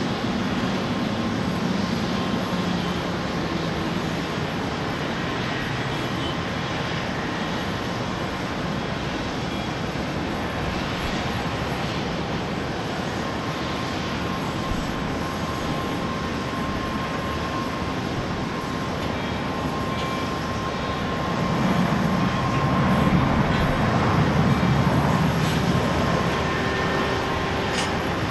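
Jet airliner engines running, a steady whine over a broad rush of noise, swelling louder with a deeper rumble about three-quarters of the way through.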